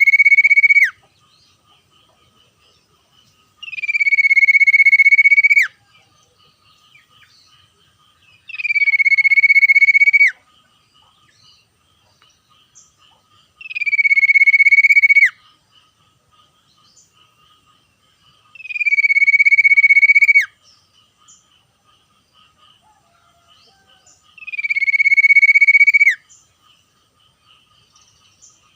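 Common iora (sirtu cipoh) calling: long, level, drawn-out whistles, each ending in a sharp downward flick. One call runs through the start, then five more follow at about five-second intervals. A faint, steady chorus runs underneath.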